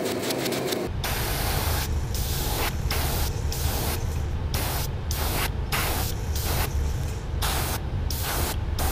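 Airbrush spraying paint onto a plastic crankbait blank in short passes: a hiss that cuts in and out about every half second to a second, over a steady low hum.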